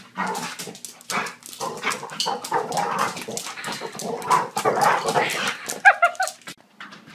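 A dog barking and yipping in a rapid, irregular run, with a short pitched whine about six seconds in.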